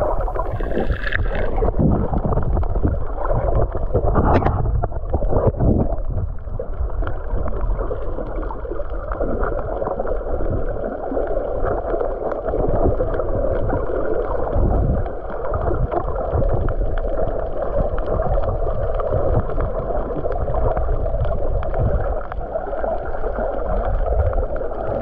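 Muffled underwater sound picked up by a submerged camera: a steady dull rush of water, with a few brief knocks about four to six seconds in.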